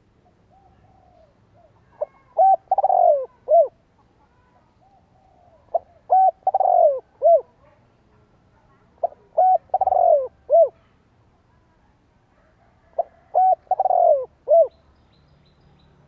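Spotted dove cooing its song phrase four times, one every three and a half to four seconds. Each phrase is a short opening coo, then a longer falling croo, then a short final coo, with a soft quiet note leading into each phrase.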